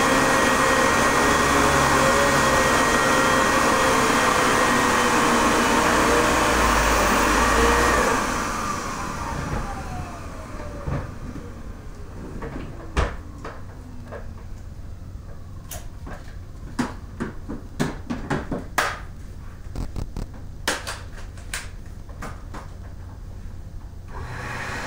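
Vintage vacuum cleaner running with a steady high whistle, then switched off about eight seconds in, its motor whine falling in pitch for several seconds as it spins down. A series of sharp clicks and knocks follows, and a steady running noise starts again near the end.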